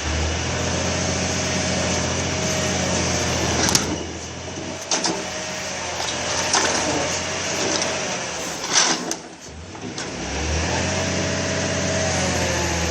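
Engine of a grapple-crane truck running steadily, with a higher whine over it and a few sharp clanks. The engine note drops away twice, about four and about nine seconds in, then comes back.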